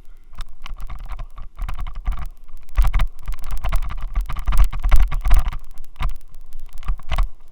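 Xiaomi Yi action camera rattling in a loose helmet mount: a dense, irregular clatter of clicks and knocks over a low rumble, heaviest in the middle. The helmet mount is the cause of the noise and vibration.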